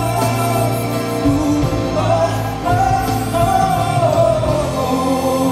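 Live Cantopop ballad duet: a male voice singing a sustained melodic line over band accompaniment.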